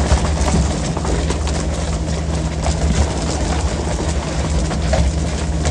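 Fishing boat's engine running with a steady low drone, under a constant hiss of rushing and splashing water and scattered sharp clicks and knocks.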